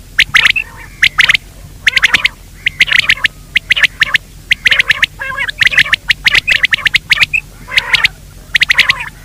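Game-bird calling track: clusters of rapid, rasping call notes repeat about once a second, with a faint steady hum underneath. It is a recorded call of the kind played to draw quail or francolin in.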